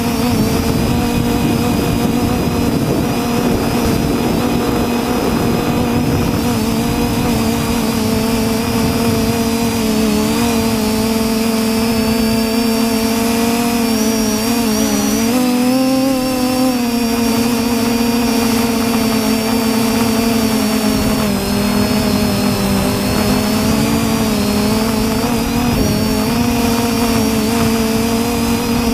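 TBS Discovery quadcopter's electric motors and propellers whining steadily, picked up by the onboard GoPro, over a low rushing noise. The pitch wavers with throttle changes, dipping and rising most clearly about halfway through.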